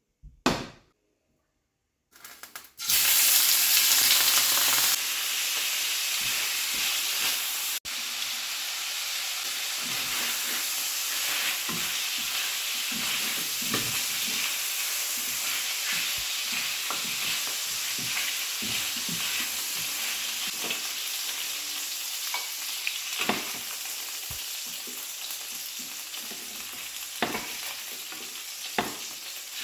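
Food frying in hot oil in a pan: a loud burst of sizzling about three seconds in, easing after about two seconds into a steady sizzle. Short clicks and scrapes of a utensil stirring the pan run through the sizzle.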